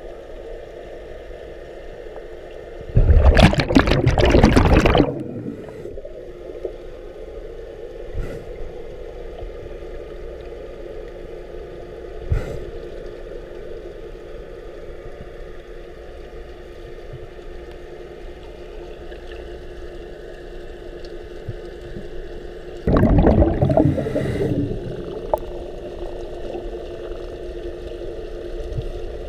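Underwater sound from a head-mounted camera inside an aquarium tank: a steady low hum, broken twice by the rushing burst of a scuba diver's exhaled bubbles from his regulator, each lasting about two seconds.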